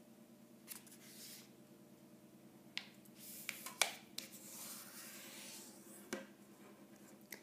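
Sheet of origami paper being creased flat on a wooden table, with faint papery rustling as fingers slide along the fold. Several sharp crinkly clicks come around three to four seconds in and again near six seconds.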